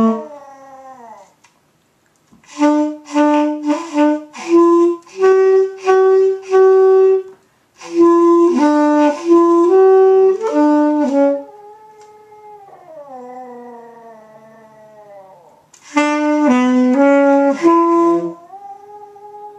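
Saxophone playing short phrases of held notes, with pauses between them. A Maltese dog howls along in fainter, sliding notes that drift downward, most clearly in a long gap in the playing in the middle and again near the end.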